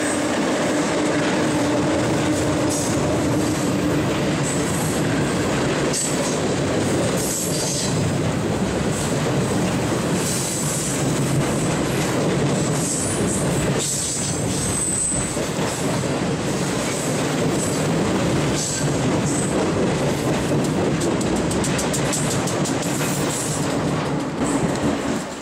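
Freight train passing over a steel railroad bridge: a steady rolling rumble with wheels clattering on the rails and high wheel squeal at times. A steady low tone from the locomotive is heard in the first few seconds, and the sound falls away abruptly near the end.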